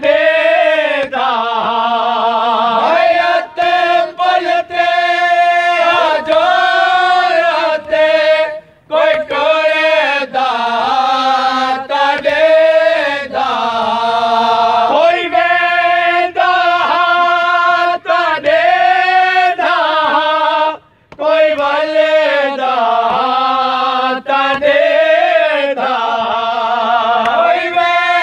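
Male voices chanting a noha, a Shia mourning lament, in long wavering sung phrases, pausing briefly twice.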